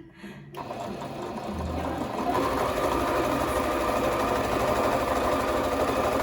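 Electric sewing machine starting about half a second in and speeding up to a fast, steady run, stitching a seam.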